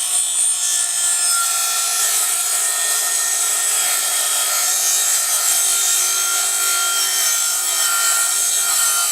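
Craftsman CMCS714M1 cordless miter saw with a 62-tooth Diablo blade running steadily and cutting through a board of hard, resin-filled OSB subfloor, a continuous high whine with the rasp of the blade in the wood.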